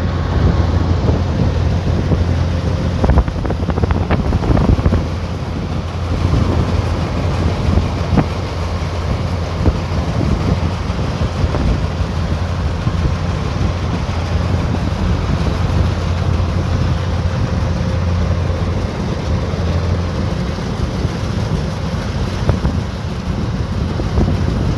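Combine harvester engine running steadily, a constant low drone with a few scattered clicks and knocks from the machinery.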